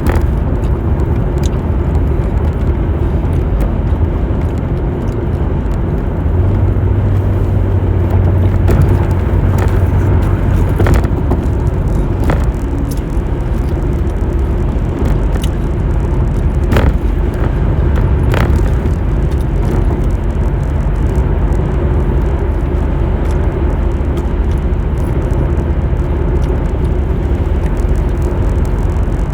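Steady road and engine noise inside a moving car's cabin, with a few light clicks partway through.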